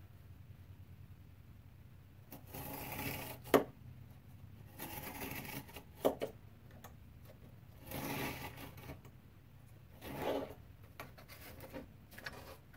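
X-Acto craft knife drawn along a steel ruler, slicing through cardboard in about four scraping strokes of about a second each, the first two ending in a sharp tick.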